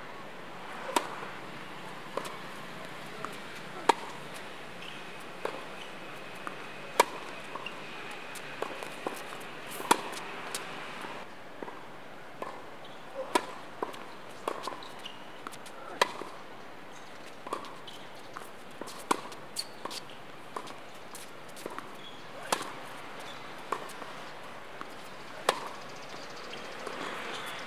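Tennis rally on a hard court, opening with a serve: sharp pops of racket strings striking the ball. The nearer player's strokes are the loudest, about every three seconds, with quieter hits and ball bounces between them.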